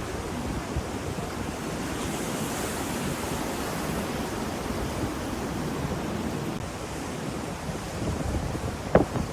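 Ocean surf washing steadily, with a wave hissing up about two seconds in, and wind rumbling on the microphone. A sharp knock near the end.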